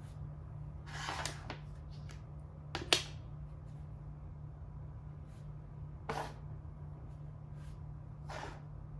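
Makruk (Thai chess) pieces being moved and set down on the board: a few short clacks, the sharpest about three seconds in, another about six seconds in and a fainter one near the end, over a steady low hum.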